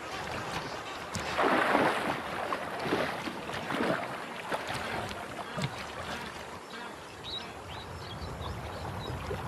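Water splashing and sloshing as a large crocodile and a hippo move through the water. The loudest splash comes about a second and a half in, followed by a few smaller ones.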